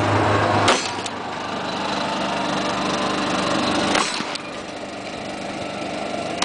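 Small utility vehicle's engine running as it drives off, growing fainter, with a sharp knock just under a second in and another about four seconds in.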